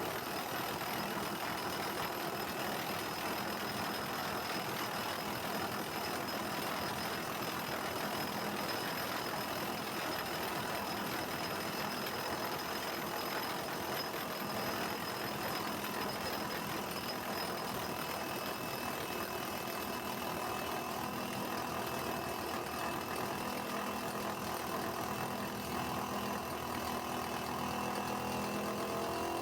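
Engine of a heavy machine running steadily, with a pitched engine note rising near the end.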